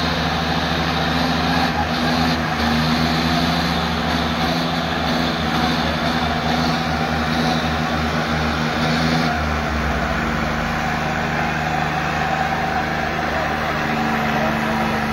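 Two John Deere 5310 tractors' three-cylinder diesel engines running hard under heavy load in a tochan tug-of-war pull. The engine note changes about nine seconds in.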